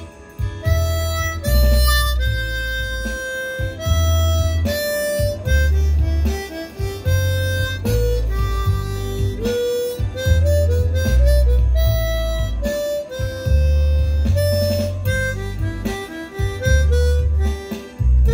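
Harmonica playing a slow gospel blues melody in long held notes, over a low bass accompaniment that sounds roughly once a second.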